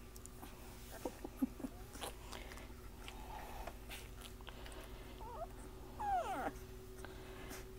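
2.5-week-old Irish Water Spaniel puppies giving a few short squeaks and whimpers. The loudest is a falling whimper about six seconds in.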